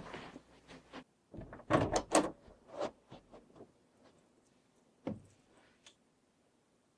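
A door being opened, with a cluster of knocks and rattles about two seconds in, light shuffling movement around it, and one sharp knock about five seconds in.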